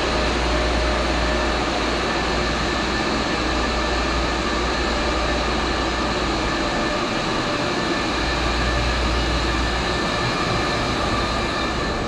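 Boiler-room machinery running: a loud, even noise with a few faint steady hums.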